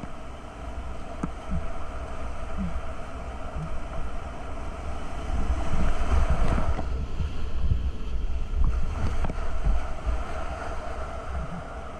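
Whitewater rapids rushing and churning close around a kayak, with a heavy low rumble; the rush grows louder about halfway through as the boat drops into a wave of white foam.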